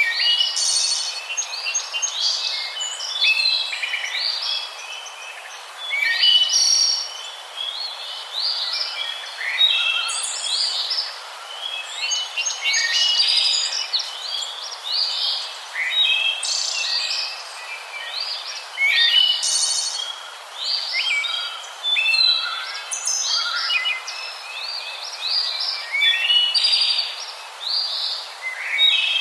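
Many small birds chirping and calling at once: a dense, overlapping chatter of short, high chirps and quick up-and-down notes that goes on without a break.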